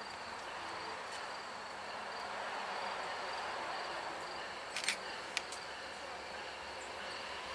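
Insects chirping in a steady high drone over a hiss that builds slightly toward the end as a distant train approaches. A few sharp clicks come about five seconds in.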